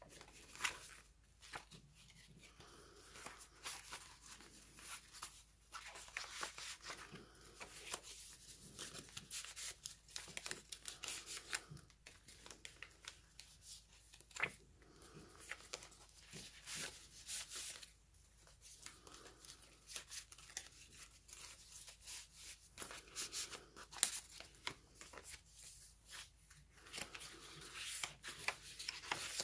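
Paper pages and card tags of a handmade junk journal being handled and turned: soft, irregular rustling and sliding of paper with scattered light taps.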